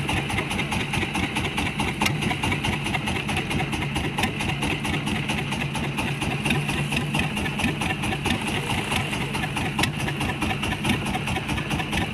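A small boat's engine running steadily at idle, with an even, unchanging beat.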